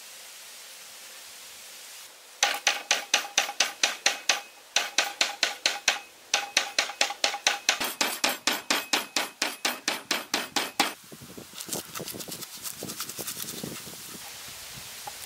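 Lemongrass stalks bashed on a wooden cutting board: sharp knocks, about three or four a second, in runs with short pauses. Near the end come quicker, lighter clicks of a knife slicing through the bruised stalks onto the board.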